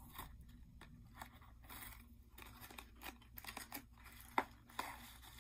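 A small bag being handled and opened by hand: light rustling with many scattered crackles and two sharper clicks near the end.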